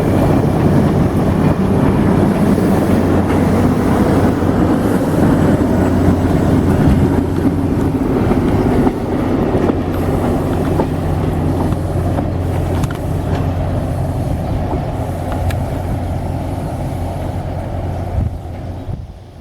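A train passing: a diesel locomotive's steady low drone with rolling noise from the cars on the rails, gradually fading and dropping off sharply near the end.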